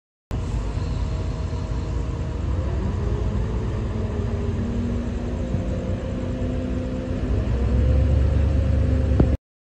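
Heavy construction machinery diesel engines running, a deep rumble with engine notes that drift slowly in pitch. The rumble grows louder about two-thirds of the way through as an engine takes on more throttle. The sound cuts off suddenly near the end.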